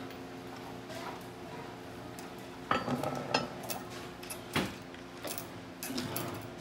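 Metal clinks and clanks from a hand chain hoist's chain as the motor hanging from it is worked, a handful of sharp knocks in the second half over a steady hum.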